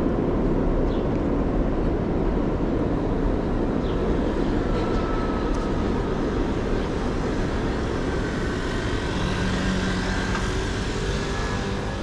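Steady low rumble of city street traffic, with a faint high whine joining in during the second half.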